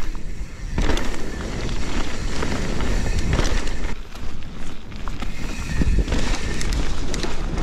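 Mountain bike riding down a wet, muddy trail: tyres rolling and skidding over the ground, with the bike rattling and knocking over bumps, and wind rumbling on the microphone.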